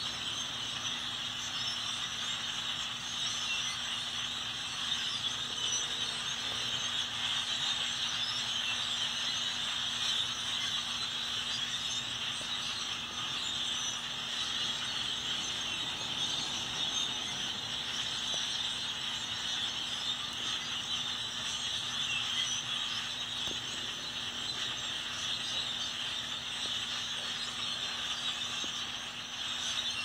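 A large flock of birds perched in bare trees, many calls overlapping into one dense, continuous din.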